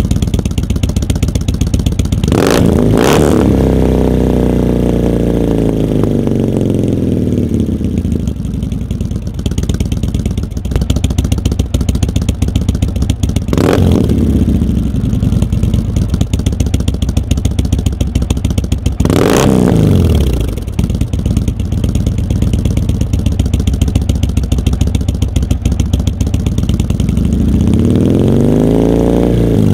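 Indian Chieftain's V-twin engine running through Bassani Xhaust true dual exhausts, revved sharply several times, the pitch falling back slowly after each rev; a last rev climbs near the end.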